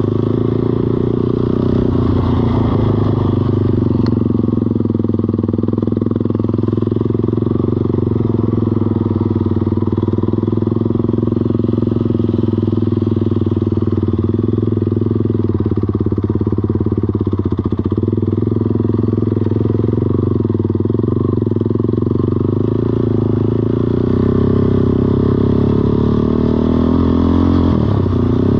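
Kymco Mongoose 90 mini ATV's small single-cylinder four-stroke engine running at a steady, even speed.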